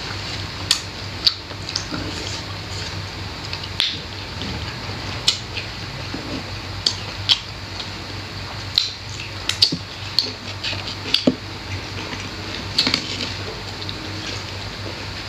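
Close-miked eating sounds: irregular wet mouth clicks and lip smacks as two people chew rice and side dishes. A steady low hum runs underneath.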